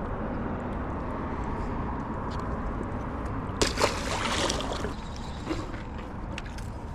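A small striped bass splashing into the water as it is released, a short burst about three and a half seconds in with two sharp slaps, over a steady low rumble.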